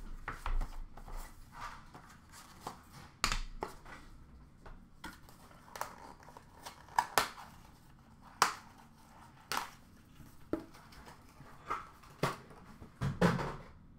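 Irregular light clicks and taps, a dozen or so, of boxes and plastic card cases being handled and set down on a counter.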